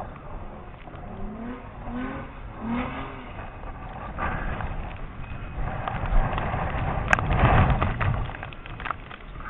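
A car going by on a snowy street, growing louder to a peak about two-thirds of the way through, with a sharp click at its loudest. Three short rising whines come in the first few seconds.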